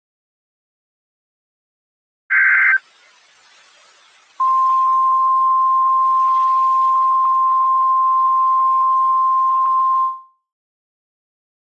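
Emergency alert broadcast signals: a half-second screech of SAME digital header data, then after a short hiss-filled pause the steady single-pitched 1050 Hz NOAA Weather Radio warning alarm tone, held for about six seconds before cutting off. These signals mark the start of a new warning.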